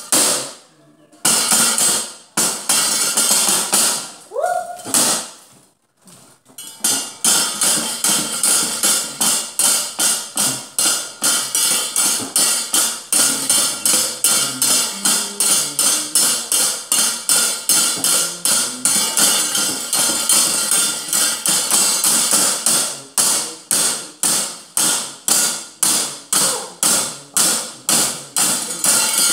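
A wayang dalang's keprak and cempala: metal plates on the wooden puppet chest struck in a fast, even run of sharp clacks, about three a second, easing to a slightly slower beat near the end.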